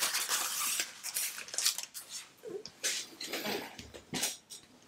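Paper sheets and a clear plastic packet holding a brass photo-etch fret rustling and crinkling as they are handled.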